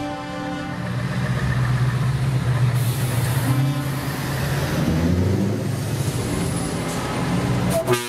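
Diesel engines of heavy trucks running as they pull slowly past one after another, with a short hiss of air, typical of an air brake, about three seconds in.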